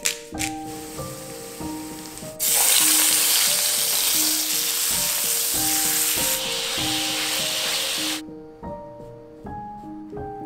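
Beef steak searing in a hot pan with a loud, steady sizzle that starts suddenly about two and a half seconds in and cuts off abruptly about eight seconds in. Light background music plays throughout.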